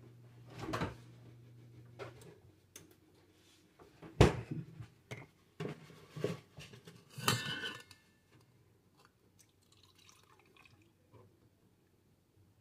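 A few knocks and clatters of a plastic gallon milk jug being handled on a counter, then milk poured from it into a plastic measuring cup near the end.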